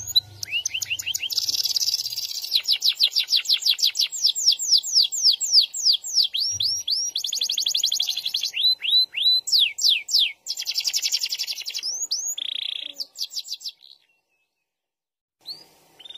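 Domestic canary singing a long, rolling song of fast trills and series of downward-sliding whistles. It stops about two seconds before the end, with a couple of short single notes after the pause.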